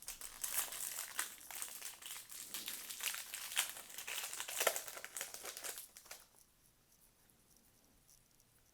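Trading-card pack wrapper crinkling as it is handled, a dense crackle for about six seconds that then stops.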